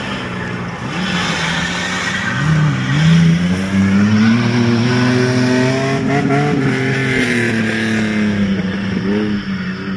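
Off-road race vehicle's engine revving hard. Its pitch climbs about two seconds in, holds high, then drops and wavers in quick throttle blips near the end.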